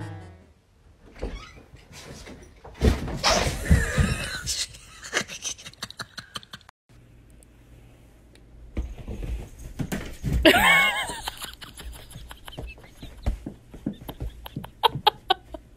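A cat yowling in two drawn-out, wavering bouts, one about three seconds in and one around ten seconds in, with short knocks and handling noises between them.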